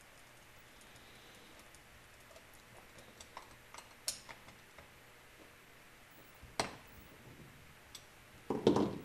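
Small metal clicks and taps of a screwdriver and crimped ring terminal at a screw terminal inside the mixer's metal housing, as a ground wire is fastened. There are sharper clicks about four and six and a half seconds in, and a louder knock near the end.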